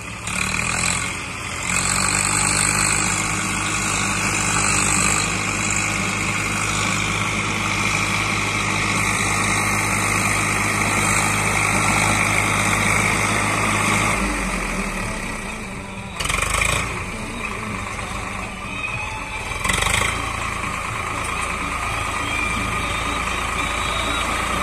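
Tractor diesel engines running as a Swaraj tractor drives up a dirt track, with a second tractor's engine running close by; the steady engine note changes about two thirds of the way in. Two short knocks follow a few seconds apart.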